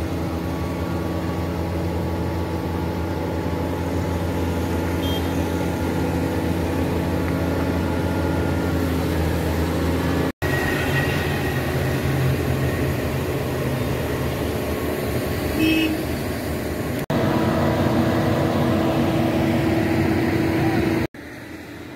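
Diesel engine of a large wheeled mobile crane running steadily under a low hum while the crane is set up and levelled on its hydraulic outriggers. The sound breaks off abruptly three times and changes a little each time; it is quieter after the last break.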